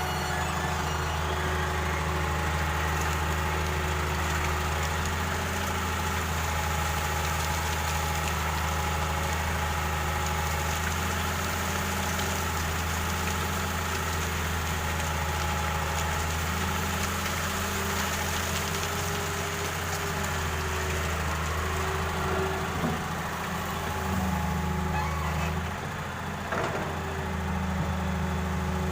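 Excavator engine running steadily, its note shifting a few times as the machine works, with a brief drop in level about 26 seconds in.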